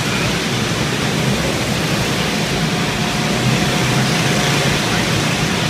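Go-karts running round an indoor track, heard as a steady noisy din, with a faint thin steady engine whine through the middle of the stretch.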